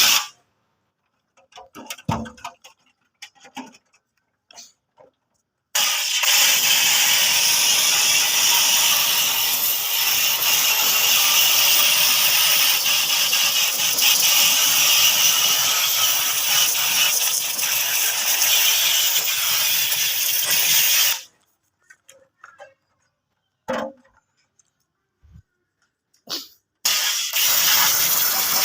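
High-pressure water jet hissing as it is sprayed onto the drum of a front-loading washing machine: a steady hiss that starts about six seconds in, runs for about fifteen seconds and cuts off, and starts again near the end. A few faint clicks and knocks come in the pauses.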